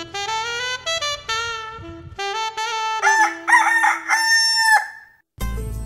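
Brass and saxophone music for about the first three seconds, then a rooster crows once, a long call that drops away at its end. The music comes back near the end.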